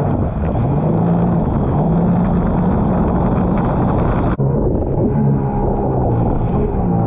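Sea-Doo jet ski engine running under way, its pitch climbing in the first second and then holding, with wind buffeting the microphone. The sound changes abruptly about four seconds in, then the engine carries on.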